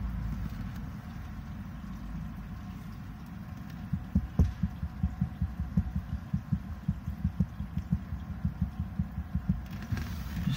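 Sink drain glugging as the last water drains slowly through the basket strainer, trap and a long waste pipe. A low rumble of running water carries on throughout, and from about four seconds in come irregular low gulps, several a second.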